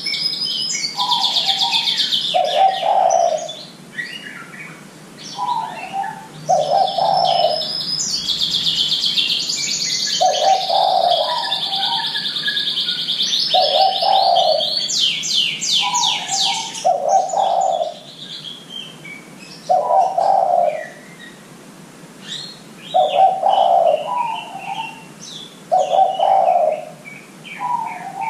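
Spotted dove (derkuku) cooing over and over, each call a short higher note followed by a longer, lower coo, about every two to three seconds. Small songbirds chirp and trill high over it, with a long run of fast trilling in the middle.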